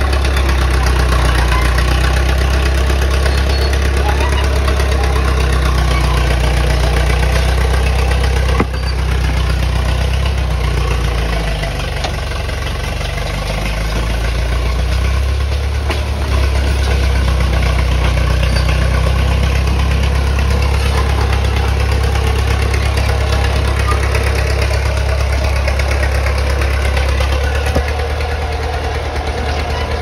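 Caterpillar crawler bulldozer's diesel engine running steadily as the dozer works, its note sagging lower for a few seconds about halfway through before picking back up. A single sharp knock sounds about nine seconds in.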